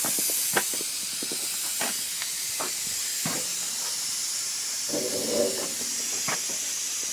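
A steady hiss, with several light knocks and clinks as a brake rotor is handled and set onto the truck's wheel hub.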